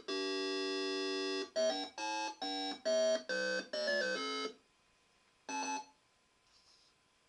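KC85/4 home computer playing two-channel electronic beep music from its Z80 PIO. It holds one long chord, then plays a quick run of short chords that stops about four and a half seconds in, and a single short final chord about a second later.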